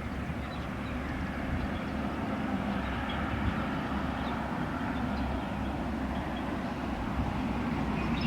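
Steady rumble of distant road traffic, with a few faint short high chirps now and then.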